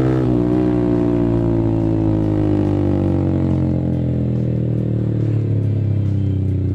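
Yamaha R15 V3's 155 cc single-cylinder engine through an aftermarket R9 racing exhaust, its revs falling steadily as the bike slows, with a change in engine note right at the end.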